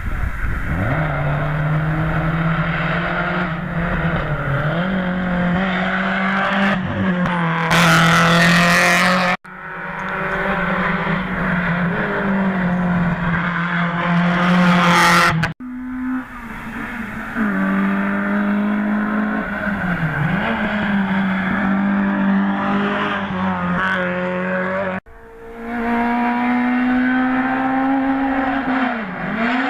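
Competition cars on a hill-climb run at high revs, engine notes holding with brief dips at gear changes and some tyre squeal. It grows loudest twice as a car passes close, and it cuts off abruptly three times between shots.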